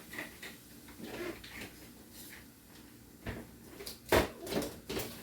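Refrigerator drawer being handled and worked loose, with faint rattles and then a few sharp knocks about four seconds in.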